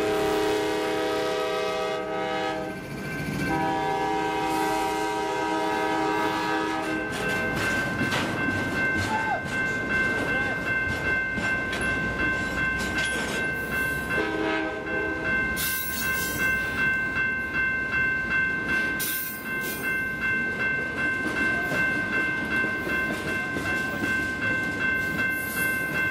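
BNSF double-stack intermodal freight train passing over a grade crossing: the diesel locomotive's horn sounds a long blast, a second long blast, then a short one about 14 seconds in. Throughout, the well cars clatter rhythmically over the rails, and from about 7 seconds in the crossing bell's steady ringing stands out.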